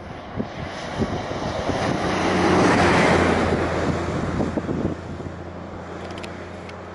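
Small twin-engine business jet running its engines on the runway: a broad rushing roar that swells to a peak about three seconds in and then eases off, over a steady low hum, with wind buffeting the microphone.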